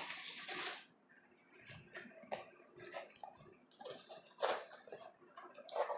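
Faint handling noise: a short rustle, then scattered light clicks and knocks of objects being moved about, with a sharper click about four and a half seconds in.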